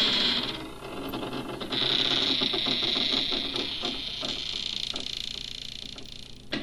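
Harsh buzzing, hissing noise from a noise-music recording, with a rapid mechanical-sounding ticking that fades down toward the end.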